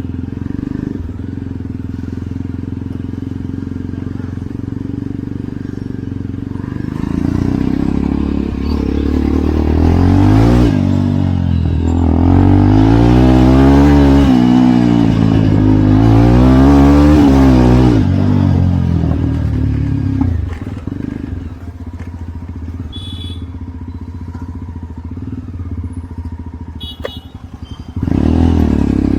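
Jawa Perak's single-cylinder engine running under way. Its note rises and falls twice in the middle, drops to a quieter note with a few sharp clicks, then picks up again near the end.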